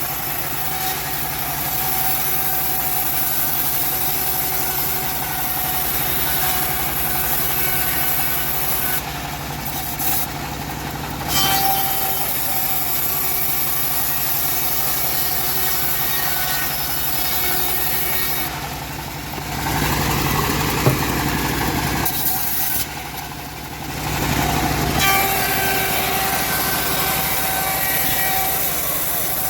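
Homemade bandsaw running steadily while ripping teak logs, a continuous mechanical hum with steady tones. About twenty seconds in there is a louder, noisier stretch of a couple of seconds.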